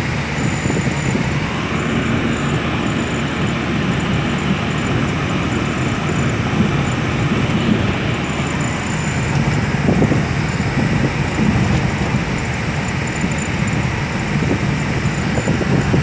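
Steady road and engine noise of a moving car, heard from inside its cabin.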